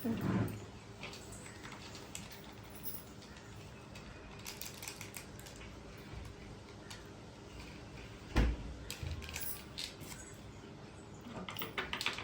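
Scattered small clicks, rustles and light knocks of hands at work as packets of snuff are snipped open and the powder is put into a small box. There is a louder low thump about eight seconds in.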